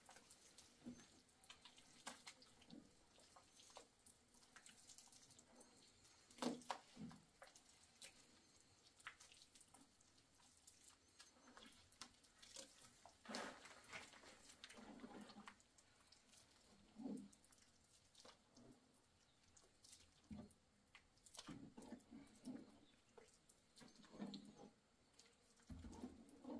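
Faint, irregular wet squelching and dabbing of hands kneading and spreading plaster paste in a plastic basin, with occasional light clicks.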